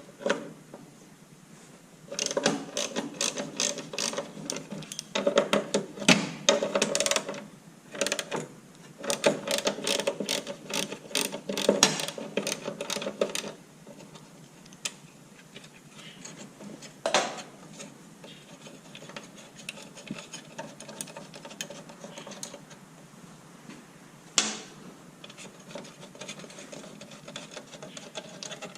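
Hand ratchet wrench clicking in quick runs as a bolt is worked loose, with short pauses between the runs. A single sharp knock comes about two-thirds of the way in, and another near the end.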